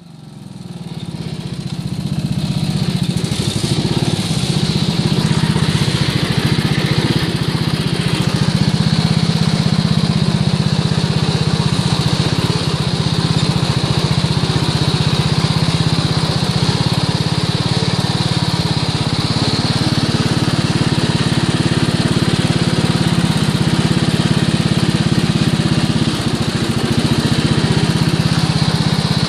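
A riding lawn mower's engine running steadily under load as the mower drives through deep water, with water churning around its tires. The sound fades in over the first couple of seconds.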